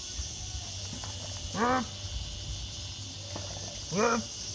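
A man's two short strained grunts, a couple of seconds apart, as he squeezes tyre puncture sealant in with force, over a steady high hiss.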